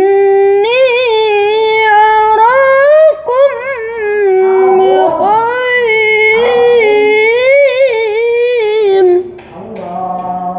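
A boy reciting the Qur'an in melodic tilawah style, holding long ornamented notes that rise and fall in pitch, until about nine seconds in. A fainter, lower held tone follows near the end.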